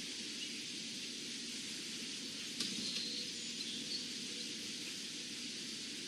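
Steady outdoor background hiss by a pond, with a single sharp click about two and a half seconds in and a few faint, brief high chirps soon after.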